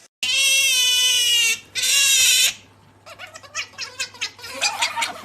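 Asian small-clawed otter giving two loud, high-pitched squeals, a long one and then a shorter one. They are followed by a run of quick clicks and short chirps.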